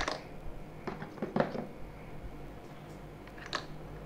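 A few light clicks and taps of small accessory bits and the plastic tray of a rotary tool kit case being handled: one at the start, a small cluster about a second and a half in, and another near the end.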